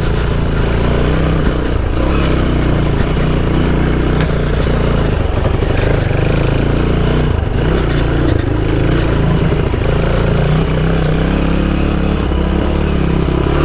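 Honda C90's single-cylinder four-stroke engine running under way, its pitch rising and falling with the throttle; the rider holds that the carburettor needs adjusting.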